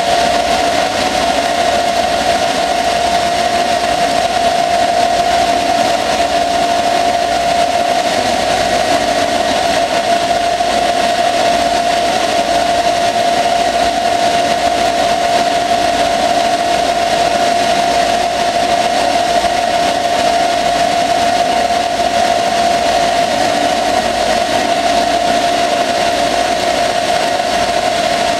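Small CNC lathe turning a steel axle under flood coolant: the machine runs steadily with a constant high whine over a hiss of cutting and coolant spray.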